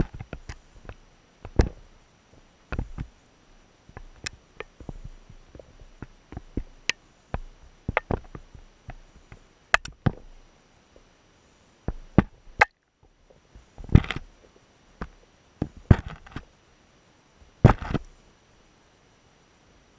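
Irregular knocks and clicks, sharp ones mixed with duller thuds, picked up through a waterproof camera housing sitting underwater on a river's gravel bed. They come a couple of times a second at uneven intervals, with the loudest knocks in the last third.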